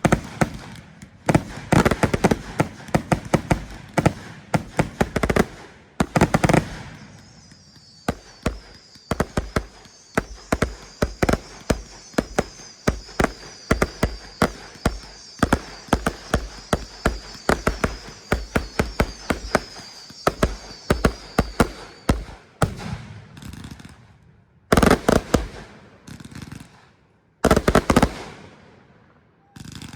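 Fireworks going off in rapid strings of sharp bangs and pops. A wavering high whistle runs through the middle stretch, then fades out, leaving a few separate loud bursts near the end.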